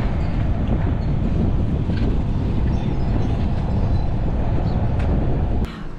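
Wind rumbling over the microphone of a camera on a moving golf cart, mixed with the cart's road and running noise: a loud, steady rumble that cuts off suddenly near the end.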